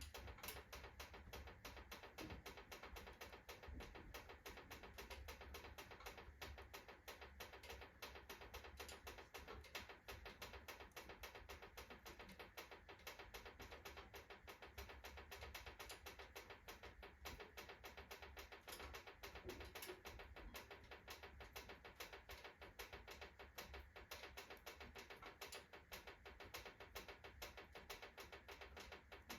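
Wood-burning fireplace stove with a freshly kindled fire: fast, faint, continuous crackling and ticking as the wood burns and the stove's iron heats and expands.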